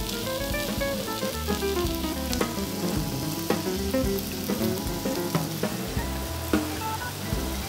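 Sliced cabbage and onion sizzling as they stir-fry in oil in a frying pan, with sauce being added and a few sharp clicks from stirring. Background music with a plucked melody plays over it.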